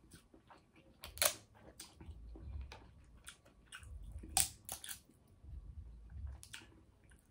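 King crab leg shell being cracked and pulled apart by hand: a handful of sharp snaps, the loudest about a second in and about four and a half seconds in, with softer crackles and handling noise between.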